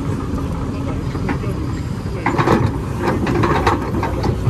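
Hydraulic excavator's diesel engine running steadily under load as its bucket pushes against a stuck truck. Sharp clanks and scraping from the bucket, metal and dirt, come in a cluster from about two seconds in.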